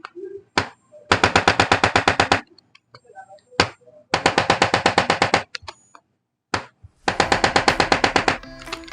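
Chiropractic adjusting instrument (activator gun) firing rapid mechanical thrusts along the spine. There are three bursts of sharp clicks, about ten a second and each lasting just over a second, with single clicks between them.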